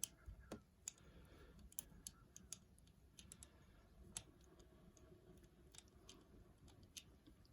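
Faint, irregular small clicks and ticks of a pick wire and tension tool moving inside a Squire 660 Old English style padlock, fishing for binding levers under heavy tension.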